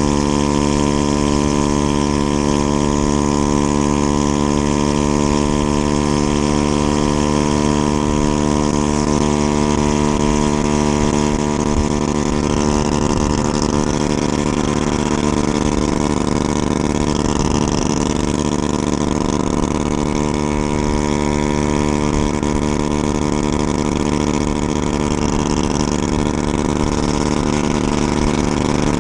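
Honda Ruckus scooter's 49cc four-stroke single-cylinder engine running at a steady cruising speed, with wind rushing over the microphone.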